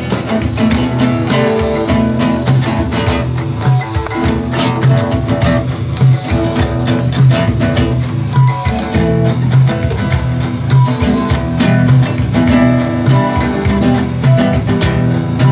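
Live improvised guitar music: classical and electric guitars playing fast, dense plucked notes over a low sustained bass line.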